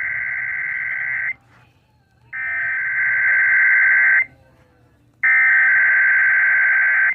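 Emergency Alert System SAME header: three bursts of warbling digital data tones, each about two seconds long with a second's pause between, the coded header sent three times to open a Required Weekly Test. The second and third bursts are louder than the first.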